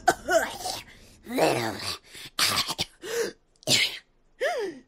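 A cartoon character's voice coughing, hacking and straining: a run of about six short vocal bursts, some rough and some pitched, rising and falling.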